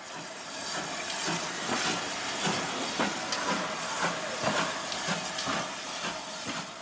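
Steam locomotive hissing as it lets off steam, with irregular clanks and knocks through the hiss.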